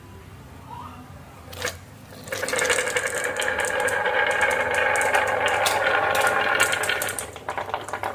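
Marbles rolling down a marble run, a single click about a second and a half in, then a long continuous rolling rattle of many quick clicks with a ringing hum, easing off near the end.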